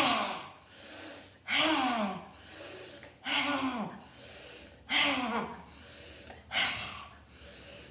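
A woman doing lion's breath (Simhasana) yoga breathing: five forceful open-mouthed exhalations with the tongue out, each a breathy "haaa" sliding down in pitch, with a quick breath in between. They come evenly, about one every second and a half.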